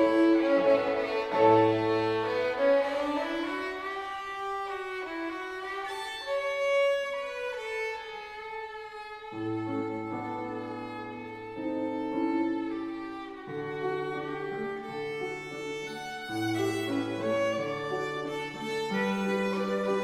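Classical music performance: a bowed string instrument plays a melodic line with sliding notes, and held low accompanying notes enter about halfway through.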